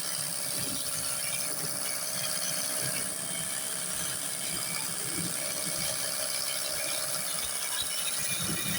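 Battery-powered cordless pressure-washer gun running steadily: an even motor-and-pump whine under a continuous hiss.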